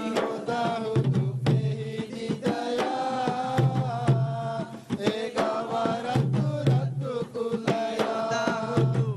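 Boduberu drumming: barrel hand drums struck in a quick, busy rhythm beneath a group of voices chanting a song.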